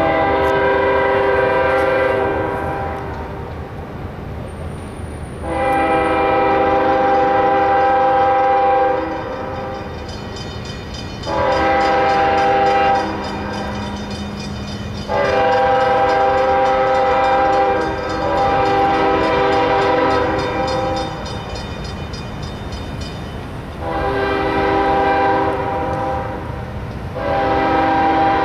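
Multi-chime air horn of a CSX ES44AC lead locomotive sounding the grade-crossing signal: two long blasts, a short one, and a long one held for several seconds, then two more long blasts begin the pattern again. A steady low rumble of the approaching train runs beneath the blasts.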